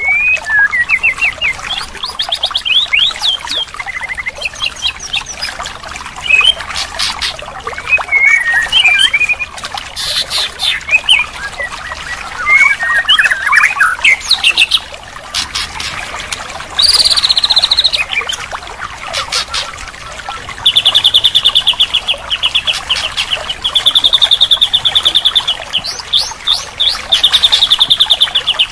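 White-rumped shama singing a varied song of clear whistles, chattering notes and fast trills over the steady sound of trickling water. The song changes phrase every few seconds, with long rapid trills near the end.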